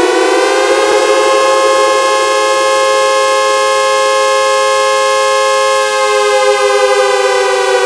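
Synthesized dual-tone air-raid-style siren, a digitally made sound effect. Its two tones rise in pitch over the first second, hold a steady wail for about five seconds, then begin to wind down near the end.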